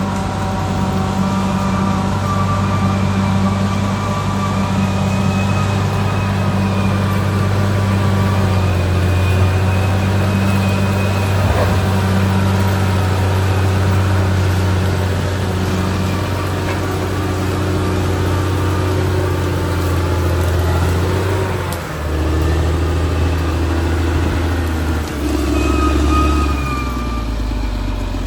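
Caterpillar D6R XL bulldozer's diesel engine running steadily under working load, with fainter whining tones above it. In the last third the engine note drops and rises a few times as the load and throttle change.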